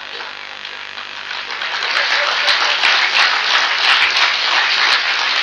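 Audience applauding, the clapping building up about a second in and going on loudly.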